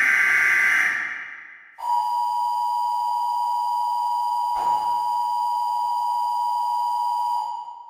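Emergency Alert System alarm: a buzzy data burst dies away, and about two seconds in the steady two-tone attention signal starts. It holds for about six seconds, with a brief click near the middle, and fades out near the end.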